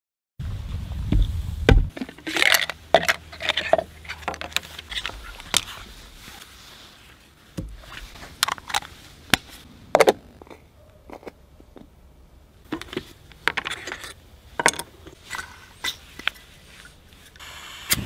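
A string of irregular clicks, knocks and scrapes: plastic and metal camping coffee gear (an AeroPress Go and a Jetboil cup) being handled and set down on a wooden table.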